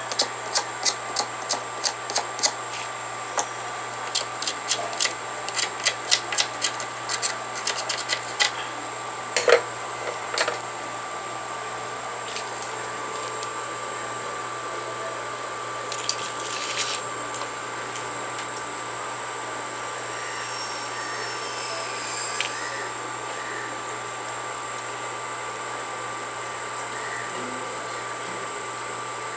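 A steady hum and hiss with a few fixed tones, overlaid by a quick run of light clicks and taps during the first eight seconds or so, and a few more clicks later on.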